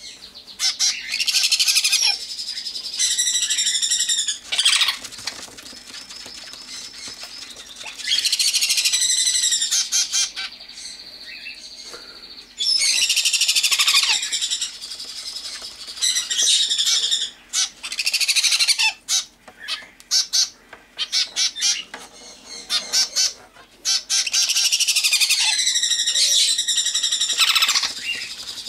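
Baby parrot chicks (sun conures and cockatiels) begging loudly while being hand-fed formula: high, wavering, raspy cries in bursts of one to three seconds, again and again, with short quieter gaps between.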